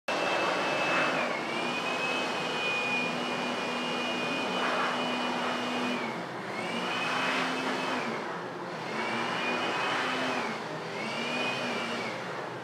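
CNC router spindle whining at high speed as its bit cuts wood, over a steady cutting hiss and a low hum. The whine's pitch dips briefly and recovers several times.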